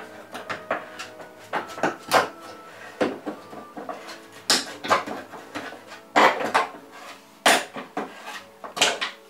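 Thin pinned wooden trim being prised and pulled off a hardboard panel edge: irregular sharp cracks, clicks and scrapes as the strip and its pins let go. Quiet background music runs underneath.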